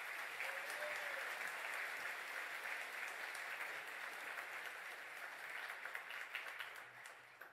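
Audience applauding: dense, steady clapping from a large crowd that thins a little near the end.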